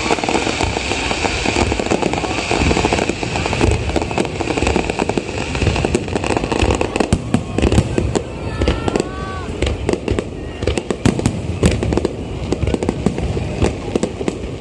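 Fireworks finale barrage: a dense, continuous run of bangs and crackling over a low rumble, with a hissing crackle in the first half.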